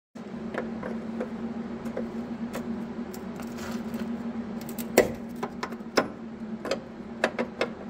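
Metal clicks and clinks of a wrench being fitted to and worked on a steel brake line flare nut, over a steady low hum. The sharpest click comes about five seconds in, with several more after it.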